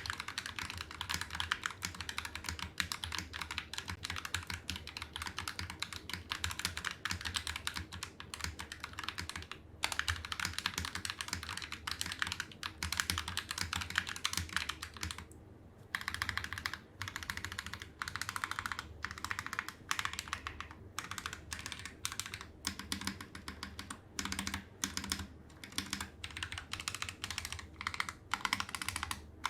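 Typing test on a finished budget TKL mechanical keyboard built from a TY87 kit with lubed Akko CS Ocean Blue switches: fast, continuous key clacks, with short pauses about ten seconds in and again around the middle.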